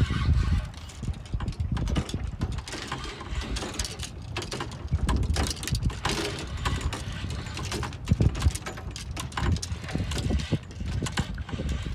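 Fishing reel being cranked, its gears giving off irregular mechanical clicking, over a low rumble of wind on the microphone.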